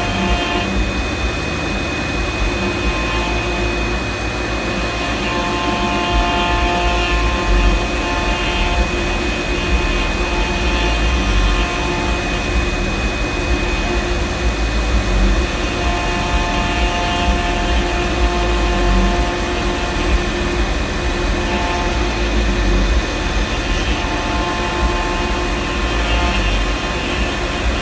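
Fox Alien 4040 CNC router running with its 300 W spindle motor: a steady high whine over machine noise and rumble, with a second, lower whine that starts and stops every few seconds.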